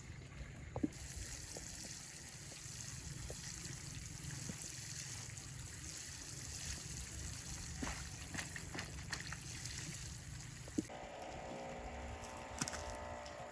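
Running water, a steady trickling hiss, with a few light knocks. Near the end, soft chiming music comes in.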